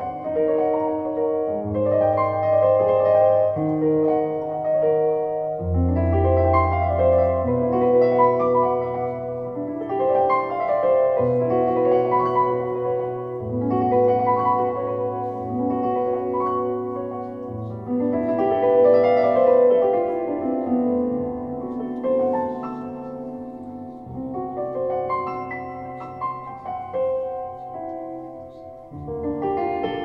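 Solo piano played on a red Nord Stage digital stage keyboard: slow, sustained chords over bass notes that change every couple of seconds, with a deep low bass note struck about six seconds in.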